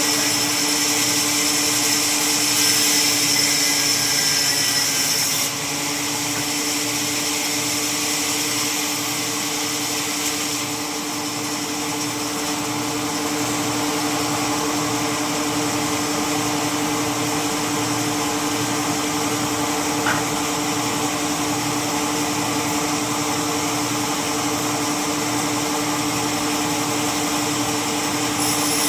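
Sawmill saw machine running steadily with a constant hum and hiss, the hiss shifting abruptly about five and eleven seconds in.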